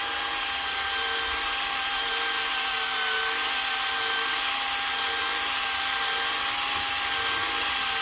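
AC Delco cordless mini rotary polisher running steadily at its lowest speed, a constant motor whine, its pad working polish over car paint.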